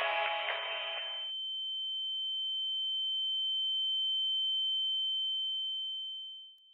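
Song music stops about a second in, leaving a single steady, high, pure electronic tone that swells gently. Near the end it drops sharply in level and carries on faintly.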